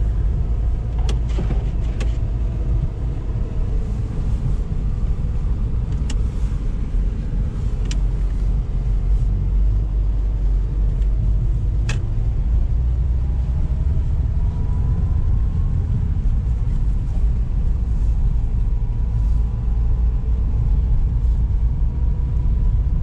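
Steady low rumble inside the cabin of a 2021 Lada Niva Travel driving slowly on a snow-covered road: engine and tyre noise. A few sharp clicks and knocks come through, and a faint whine rises slowly in the second half.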